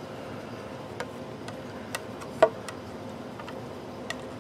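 A plastic tortoiseshell pickguard being fitted onto a Telecaster body, giving a few sharp, irregular clicks and taps as it is handled and pressed down. The loudest tap comes about halfway through.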